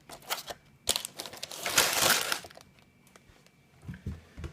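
Sealed plastic bags of LEGO pieces crinkling and rustling as they are handled, with a few sharp clicks early on and a louder rustle about two seconds in. A couple of light knocks near the end.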